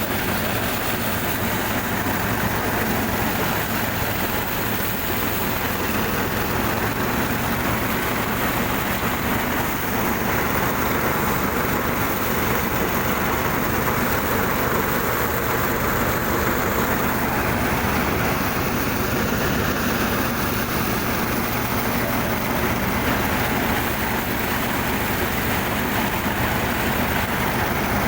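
Stationary engine driving a farm machine, running steadily at a constant speed with a continuous low hum and a dense mechanical rattle over it.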